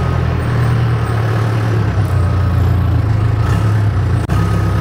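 Backhoe loader's engine running steadily as the machine is driven, with a brief dropout about four seconds in.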